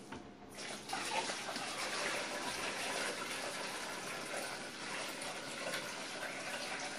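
Water pouring from a five-gallon plastic bucket into an aquarium, splashing onto a plastic container held at the surface; a steady rushing splash that starts about half a second in.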